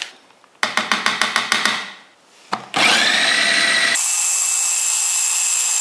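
Food processor blending dates and almonds with cacao and nut butter. A quick rattling run of about ten pulses comes first. Then the motor spins up with a rising whine and runs on steadily at a high pitch as the mixture turns to paste.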